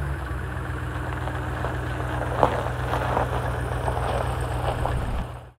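Ram 1500 pickup truck's engine running with a steady low, pulsing rumble. A single sharper tick comes about halfway through, and the sound cuts off just before the end.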